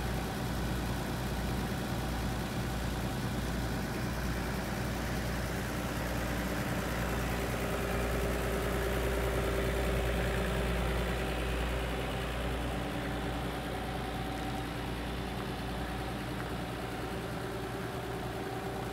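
Nissan Civilian bus's TD42 straight-six diesel idling steadily.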